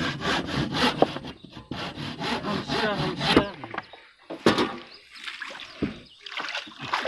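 Handsaw cutting into a wooden boat plank in quick, even strokes, about five a second, stopping about three and a half seconds in. A single sharp knock follows about a second later.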